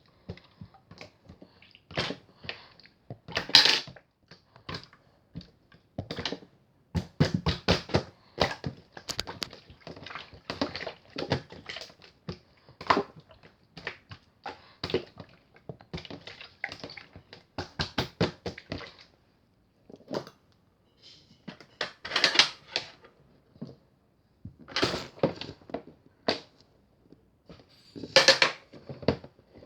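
Irregular clicks, knocks and rustling of things being handled close by, in quick runs broken by short pauses.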